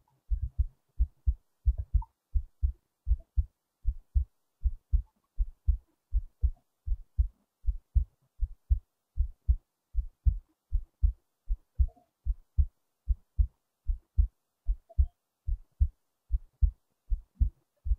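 A person's heartbeat recorded close at the chest: a steady double thump, lub-dub, at about one and a half beats a second.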